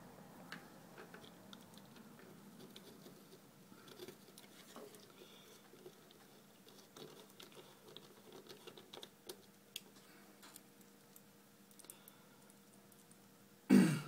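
Small screws and a small cross-headed screwdriver clicking and tapping against a plastic keypad housing as the screws are put back in: a scatter of light, irregular ticks over a faint steady hum. Near the end comes a single loud, brief thump.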